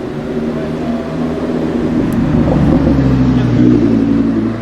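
Audi R8 V10 Plus's naturally aspirated V10 running through a Capristo aftermarket exhaust: a low, steady engine note growing louder.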